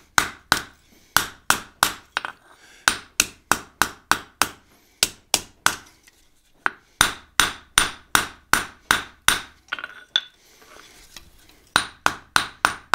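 Ball peen hammer striking red-hot high-carbon steel on an anvil, about three sharp blows a second in several runs with short pauses, each blow ringing briefly. The smith is spreading and doming a forged heart from its back side.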